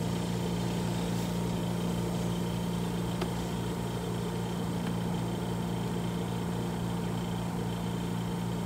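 Steady mechanical hum, low and even, with a few faint constant higher tones above it.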